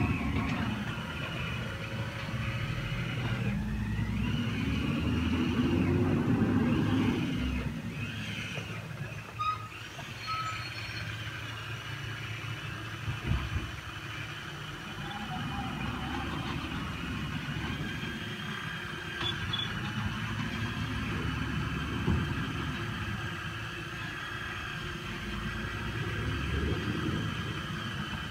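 A heavy truck's engine running down the street, rising in pitch as it revs about three to seven seconds in, then settling back to a steady run, with a couple of short beeps near the ten-second mark.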